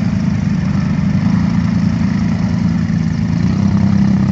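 Quad bike (ATV) engine running as the machine drives through marsh grass into a pond. It holds a steady note, then revs up a little about three and a half seconds in.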